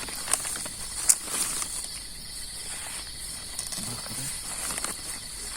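Night insects such as crickets keep up a steady high-pitched chorus. A few sharp clicks cut through it, the loudest about a second in.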